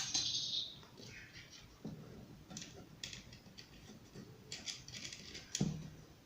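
Scattered light clicks and scrapes of small hardware being handled: screws and a ceiling-fan blade being fitted to its mount by hand, with a sharper click at the very start.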